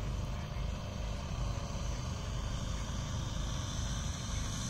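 Saito 84 three-cylinder radial engine of a large scale model warplane running steadily and evenly, throttled back on the landing approach.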